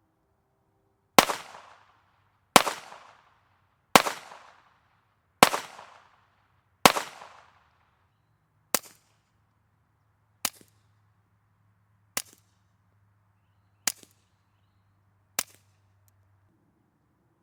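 Ten suppressed .22 rimfire shots through a Sig Sauer SRD22X silencer, fired at a steady pace. The first five are louder, each with a long fading tail. The last five, a little more widely spaced, are shorter, sharper cracks.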